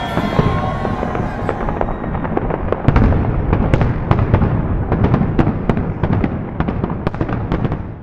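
Dense, irregular series of sharp cracks and pops over a continuous low rumble, cutting off suddenly near the end.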